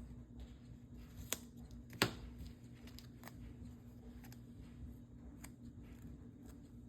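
A few sharp clicks and light taps of paper and craft tools being handled, the loudest about two seconds in, over the steady low hum of a clothes dryer running.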